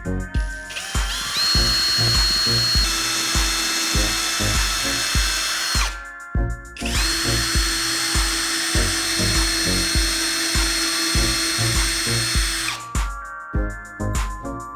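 Electric power drill running in two long runs of about five and six seconds, each spinning up to a steady high whine, over background music with a steady beat.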